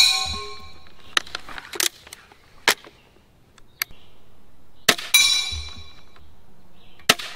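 Two crossbow bolts from an EK Archery Cobra System Adder striking the steel plates of a Texas Star spinner target. Each hit follows the crossbow's sharp release crack by about a quarter second and is a loud clang of steel that rings on with clear tones. The first comes at the very start, the second about five seconds in, with lighter clicks in between.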